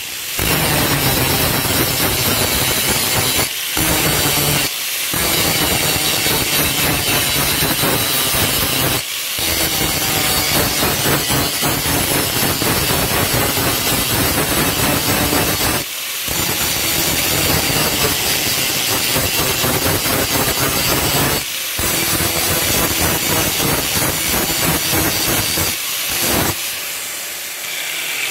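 Electric angle grinder with an abrasive disc grinding the paint off a steel flat bar down to bare metal. The grinding is loud and continuous with a few short breaks. Near the end the grinder is switched off and its pitch falls as the disc spins down.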